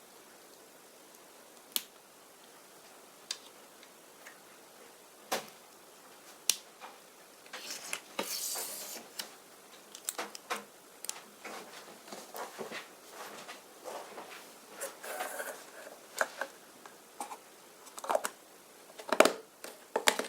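Small plastic Lego pieces and packaging being handled: a few sharp clicks at first, then from about seven seconds in busier clicking and rustling.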